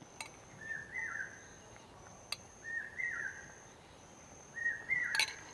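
Asian koel calling three times, about two seconds apart, each call a two-note phrase with the second note higher, over a faint steady high insect drone. A single sharp click about two seconds in.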